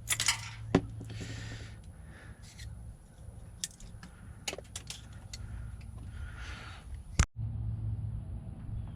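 Small metal clicks and rattles of a lock cylinder and its pins being handled during a rekey. About seven seconds in there is a sudden cut, followed by a steady low hum of a vehicle driving.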